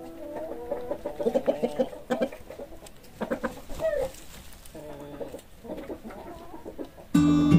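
Chickens clucking: a run of quick clucks, then softer, more spaced calls.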